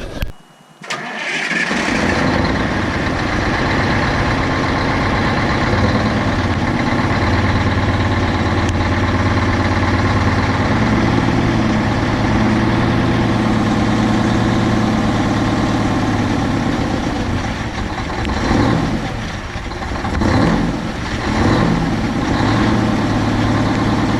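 Detroit 8V92 two-stroke V8 diesel in a 1985 Peterbilt dump truck comes in about two seconds in and runs steadily at idle. Its loudness dips and swells a few times near the end.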